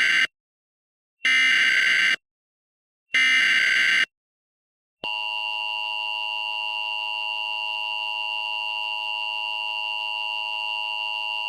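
Emergency Alert System tones: the end of one burst of SAME header data and then two more, each about a second long and a second apart. About five seconds in, the steady EAS attention tone begins and holds.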